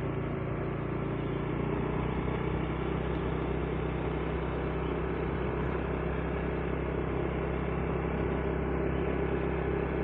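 Motorcycle engine running steadily while riding along at an even speed, with wind and tyre noise over it.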